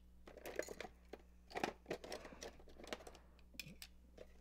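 Faint scattered clicks and short rustles of objects being handled, over a low steady hum.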